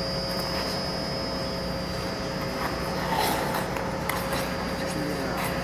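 Figure-skate blades gliding and scraping on rink ice, with a few faint scrapes about halfway through. Underneath is a steady hum and hiss with a few constant tones.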